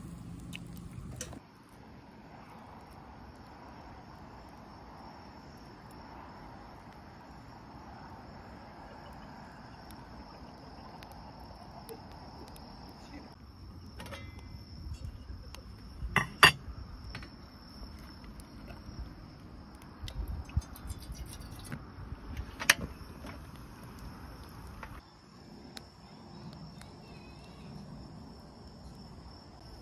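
Crickets chirring in a steady, even, high drone. Twice, about midway and again a few seconds later, a sharp metallic clink rings out from a stainless camping pot and lid on a gas stove.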